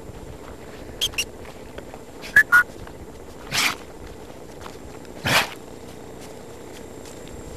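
A Great Dane puppy's short breathy snorts, twice, a couple of seconds apart. Before them come two brief high squeaks and two faint clicks.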